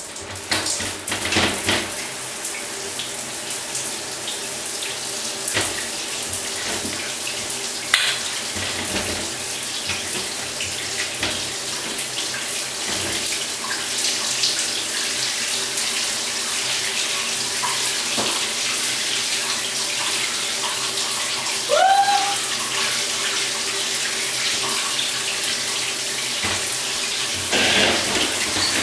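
Shower running in a glass cubicle: water spraying steadily. A short rising then falling note sounds about three-quarters of the way through, and the water sounds louder near the end as the cubicle door is opened.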